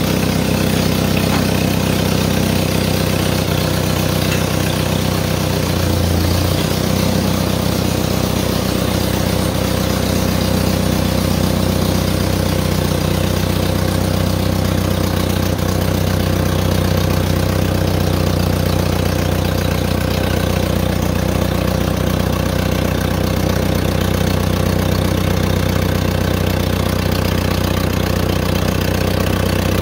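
1955 Massey Ferguson TO-35's four-cylinder gasoline engine running steadily at a low, even speed, its tone shifting slightly about six seconds in.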